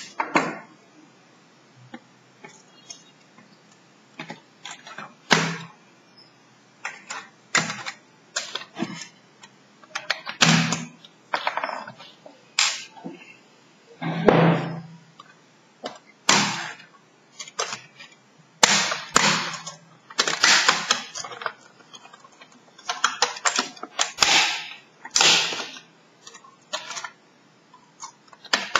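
An irregular series of sharp plastic clicks and knocks from a Lenovo Y450 laptop being handled: turned over, opened, and its keyboard pried up at the top edge.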